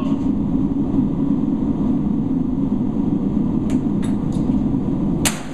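Steady low mechanical rumble of shop background noise, with a few light clicks about three and a half to four and a half seconds in and one sharp knock near the end.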